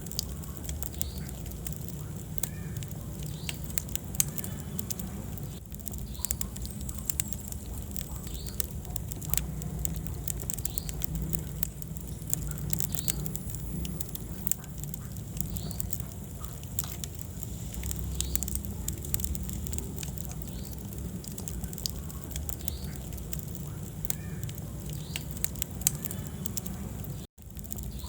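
Wood fire burning in a fireplace: a steady low rumble of flames with frequent sharp crackles and pops. The sound cuts out for a split second near the end.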